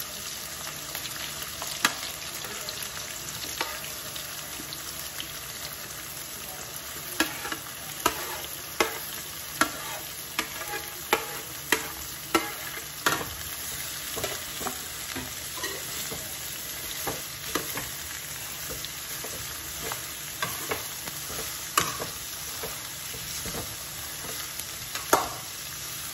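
Sliced onions sizzling as they fry in hot ghee in a steel kadhai, with a metal ladle scraping and clinking against the pan as they are stirred. Through the middle there is a run of regular ladle knocks, about one every three-quarters of a second.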